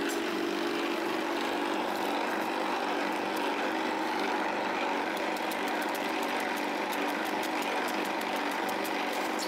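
Electric meat grinder running steadily, grinding biscuits into crumbs. From about halfway, a fast crackle of the biscuits being crushed as the pusher forces them down the feed tube.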